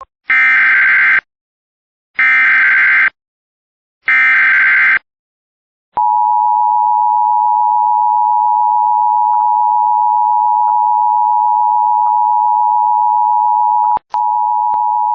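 Emergency Alert System tornado warning: three short, buzzy bursts of SAME header data, about two seconds apart. From about six seconds in comes the steady two-tone EAS attention signal, which cuts out for a moment near the end.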